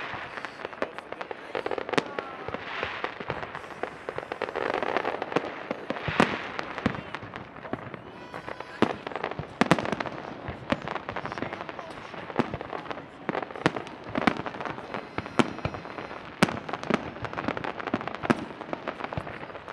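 Aerial fireworks display: shells bursting in quick succession, with sharp bangs several times a second over a continuous noisy rumble and crackle of overlapping bursts.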